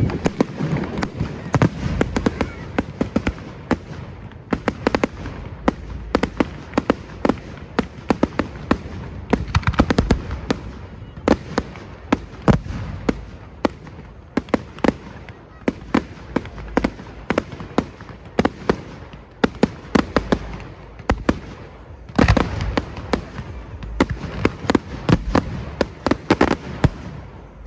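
Fireworks going off in a rapid, irregular string of bangs and crackles, thickening into dense volleys about ten seconds in and again near the end.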